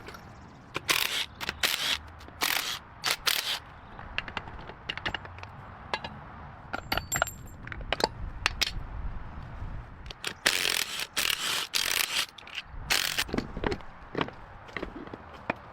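Socket ratchet wrench clicking in short, irregular bursts on engine bolts, with metal tools clattering and scraping between strokes.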